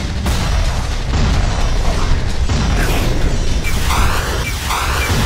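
Cinematic sound effects of booms and explosions over a deep, continuous rumble.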